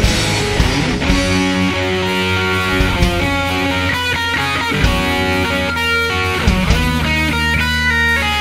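Rock music led by electric guitar, with steady chords and notes over a bass line.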